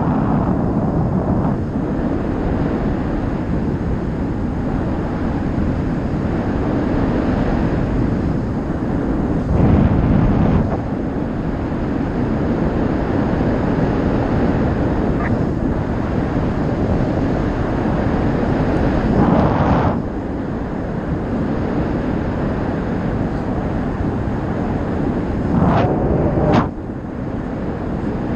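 Wind rushing over the camera microphone of a paraglider in flight. It is a steady rush that swells briefly three times.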